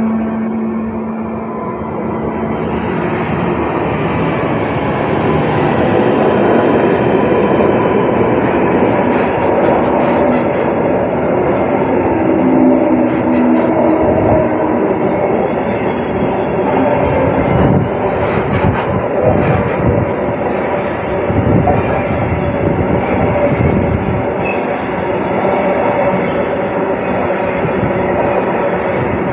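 Freight train passing close by: two Lineas Class 77 diesel locomotives run past, then a long string of tank wagons rolls by in a continuous rumble, with occasional clatter from the wheels.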